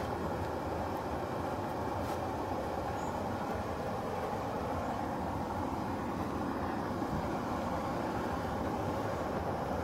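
A steady low rumbling noise that holds even throughout, with no distinct events in it.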